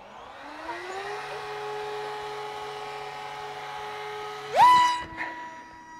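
Electric motor and propeller of a small 3D-printed RC wing spinning up in a rising whine, then holding a steady pitch. About four and a half seconds in it jumps sharply higher and louder as the throttle is opened, as for a launch.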